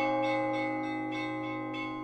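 Church bells ringing: a deep bell's long, many-toned ringing slowly fading, with lighter strokes from higher bells sounding over it.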